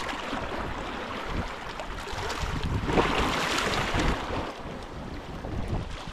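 Wind buffeting the microphone over sloshing water, swelling louder for a couple of seconds about three seconds in.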